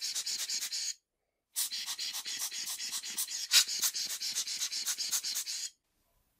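Rubber bulb air blower squeezed rapidly, about six quick puffs of air a second, blowing a speck of dust off a camera lens element. The puffing pauses briefly about a second in, resumes, and stops near the end.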